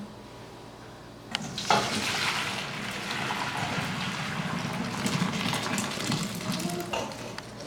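Boiled rice and its cooking water poured out of the pot to drain, the water gushing steadily from about a second and a half in until near the end.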